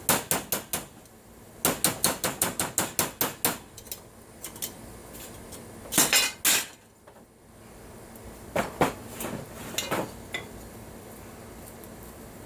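Hammer tapping on a thin aluminum brace to shape and smooth it, with sharp metallic strikes: a quick run at the start, then about a dozen at around six a second. Two longer clattering sounds follow about six seconds in, then a few scattered taps.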